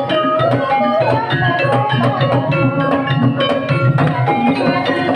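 Banyumasan gamelan music accompanying an ebeg dance: quick struck pitched metal or bamboo notes over a steady hand-drum rhythm.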